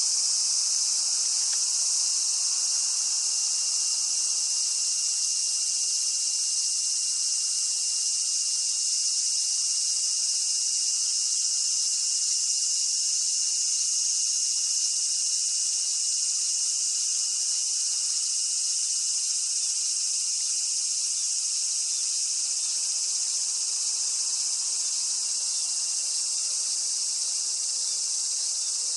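A loud chorus of cicadas: a dense, steady high-pitched drone that holds without a break.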